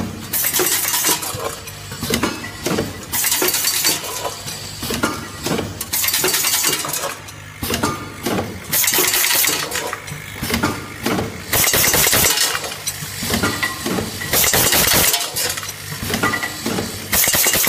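Automatic screw packaging machine running: a mass of small metal screws clattering and clinking through its bowl feeder and feed track, in surges every couple of seconds, over a steady low machine hum.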